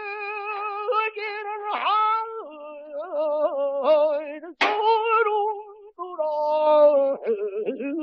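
Male pansori singer holding long notes with a wide, shaking vibrato and sliding pitch, with a single sharp stroke on the buk barrel drum about halfway through.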